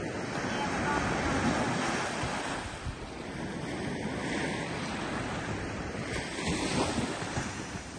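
Small surf breaking and washing up a sandy beach, swelling louder twice, with wind rumbling on the microphone.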